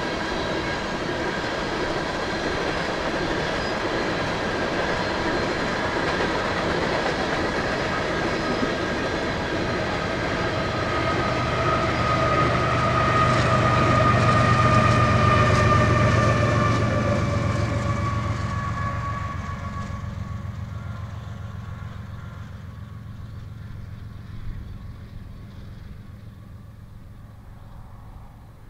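An empty coal train rolling by, its cars making a clickety-clack with steady ringing tones above it. A low diesel locomotive engine drone swells to its loudest about halfway through, then the whole train sound fades away steadily.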